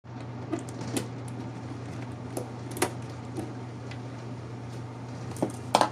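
Scattered clicks and knocks of hand tools and hard plastic as a taillight housing is worked loose from the car, over a steady low hum.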